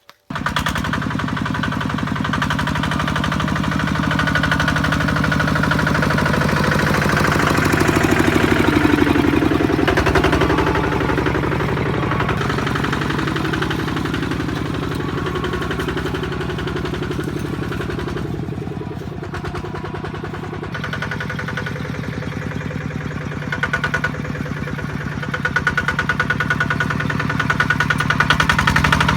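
Kubota RT155 single-cylinder diesel engine running with a fast, steady thudding beat. It cuts in suddenly at the start, and its loudness swells and eases a little along the way.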